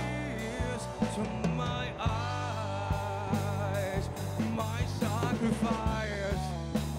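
Rock band playing live: drum kit, electric guitar and electric bass, with a lead line from harmonica cupped to the microphone at the start, then a man singing.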